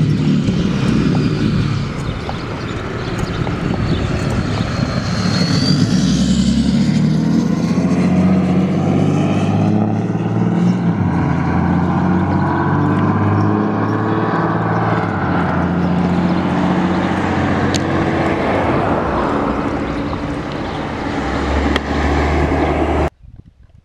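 Loud, steady road-traffic noise from passing motor vehicles, engines humming and tyres hissing, with slow rising and falling whines as vehicles go by. It cuts off suddenly near the end.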